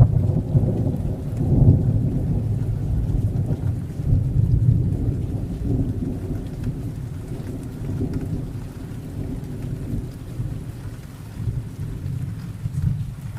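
Thunder rumbling over steady rain: a heavy low roll that swells near the start and again about two seconds in, then slowly dies away while the rain keeps pattering.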